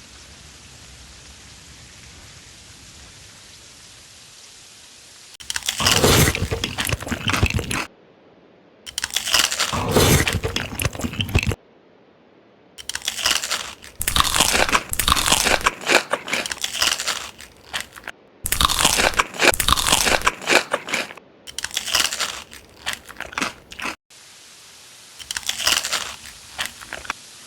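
Loud crunchy biting and chewing of crisp food in several stretches, broken by abrupt short dropouts where the audio is cut. A steady hiss comes before the first crunching, about five seconds in.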